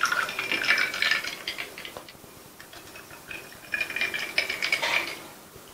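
Thick chilled milk drink poured over ice cubes in two glass tumblers, one after the other, with the ice clinking and crackling against the glass as the liquid splashes in.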